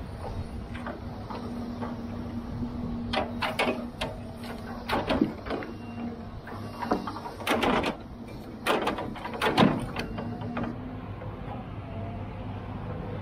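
Diesel engine of a John Deere tracked log loader running steadily while its Rotobec grapple works a pile of logs. Several loud knocks and clunks of logs striking one another come in the middle, the loudest near the end of that stretch.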